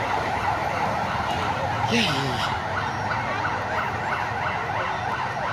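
Emergency vehicle sirens wailing in rapid, repeating rise-and-fall sweeps over steady street noise, with a brief voice about two seconds in.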